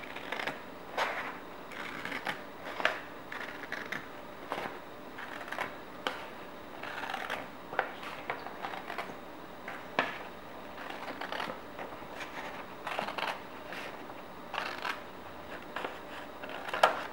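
Scissors cutting a sheet of colored paper along a fold: a run of short, irregular snips and crisp paper rustles, roughly one every second or so.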